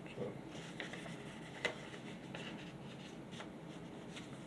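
Quiet rustling and sliding of printed paper sheets being handled, with several light taps and one sharper click about a second and a half in.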